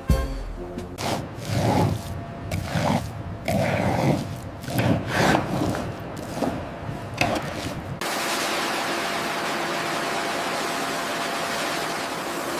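About eight seconds of irregular scraping or rubbing strokes, roughly one or two a second, then a sudden change about eight seconds in to a steady hiss that runs on evenly.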